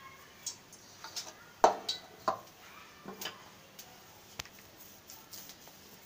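Scattered light knocks and clicks of kitchen handling: a steel bowl, dough set down on a stone counter and a wooden rolling pin being picked up. The loudest knock comes about one and a half seconds in, with a few quicker taps after it.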